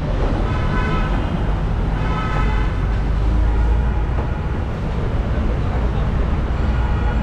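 Busy road traffic: a steady rumble of engines and tyres, with two short vehicle horn honks, one about half a second in and another about two seconds in.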